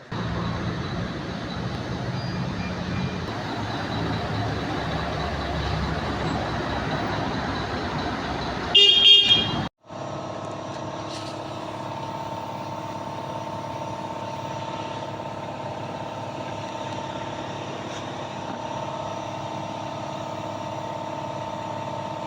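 Rumbling vehicle or engine noise, then a short, loud vehicle horn blast about nine seconds in. After a sudden cut, a steady machine hum with a few held tones.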